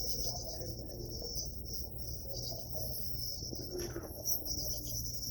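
A continuous high-pitched insect trill, like crickets, with brief breaks, over a low steady hum.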